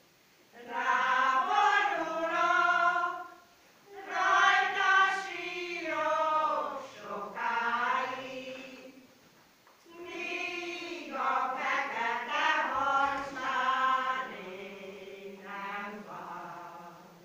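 Women's choir singing a Hungarian folk song in phrases of a few seconds, with short breaks between them about four seconds in and again near the middle.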